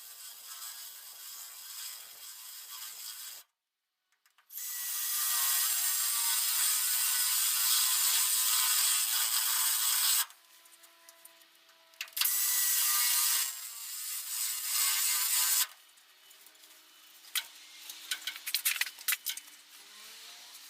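Power drill boring out spot welds in car body sheet steel: grinding, hissy stretches of drilling that start and stop abruptly, with a second of dead silence about four seconds in. Quieter clicks and knocks come near the end.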